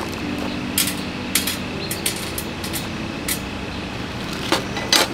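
Background music of held notes that change pitch in steps, with a handful of sharp clacks or knocks at irregular moments over it.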